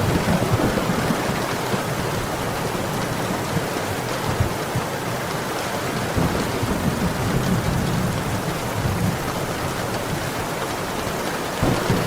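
Heavy rain falling steadily, with a low rumble underneath that swells and fades.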